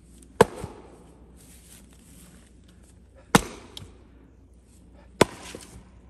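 Splitting axe striking rounds of firewood three times, two to three seconds apart: each blow a sharp crack as the wood splits, followed by a lighter knock or two.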